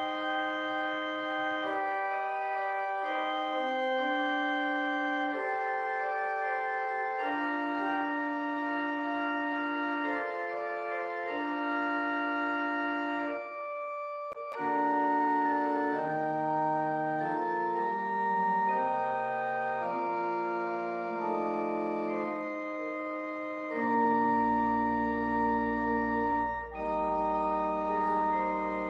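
Pipe organ playing slow, sustained chords as offertory music. The playing breaks off briefly about fourteen seconds in, and deep pedal bass notes come in near the end.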